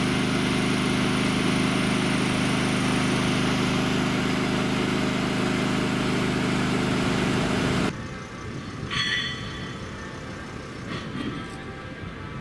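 An engine idling steadily with an even, low hum; it cuts off abruptly about eight seconds in, leaving quieter outdoor background with a brief high tone about a second later.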